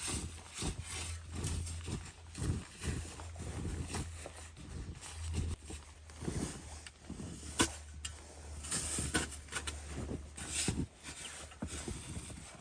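Footsteps crunching through snow at a steady walking pace, about two steps a second, over a low steady hum.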